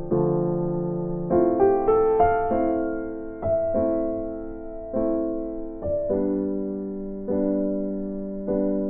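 Slow, gentle piano music: sustained chords struck about once a second, with a short cluster of quicker notes early on.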